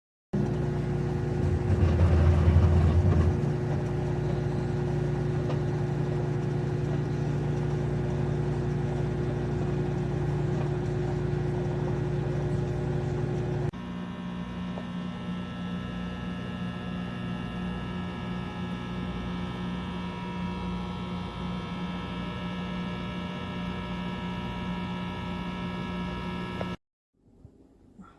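Galanz retro microwave oven running: a steady electrical hum made of several tones, with a louder low rumble about two seconds in. The hum changes pitch pattern about halfway through and cuts off suddenly near the end.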